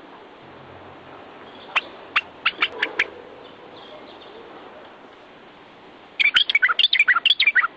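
Common bulbul of the Moroccan race (Pycnonotus barbatus barbatus) singing: a handful of sharp, separate notes about two seconds in, then a fast run of chirpy notes near the end. A faint steady hiss lies underneath.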